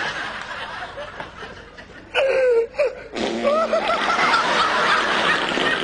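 People laughing. It dies down for a moment, then breaks out again louder about three seconds in.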